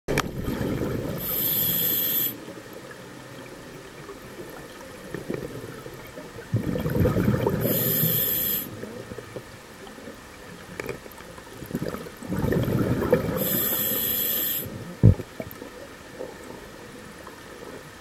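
A scuba diver breathing through a regulator, heard underwater: three breaths about six seconds apart, each a low bubbling rush with a high hiss from the regulator. A single sharp knock about fifteen seconds in.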